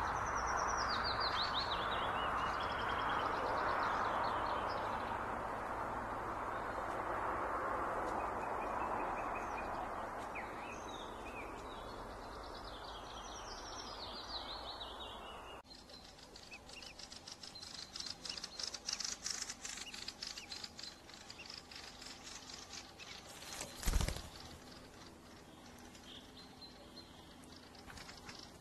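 Songbird singing short, falling, trilled phrases over a steady background hiss. About halfway the hiss cuts off abruptly, and a run of rapid clicks and one loud thump follow.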